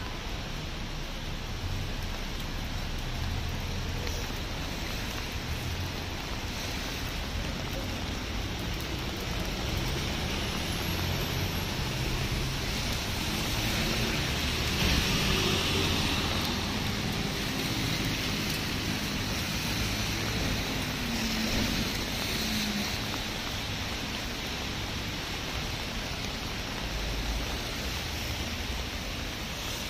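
Steady light rain falling on a wet city street. About halfway through, a car passes on the wet road, its tyres hissing.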